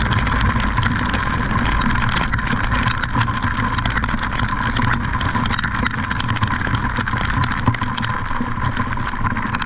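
An engine running steadily under a constant noisy rush, with a thin steady whine held throughout.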